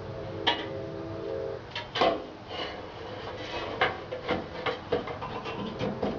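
Installation handling noises: a string of irregular clicks and knocks with some rubbing and scraping, the loudest knock about two seconds in.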